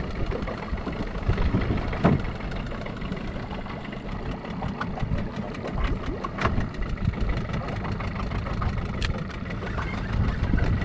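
Uneven low rumble aboard a small fishing boat at sea, with a few sharp clicks about two, six and nine seconds in.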